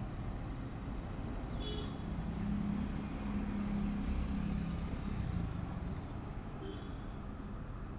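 Low engine hum of a passing motor vehicle, growing louder about two seconds in and fading again after about five seconds.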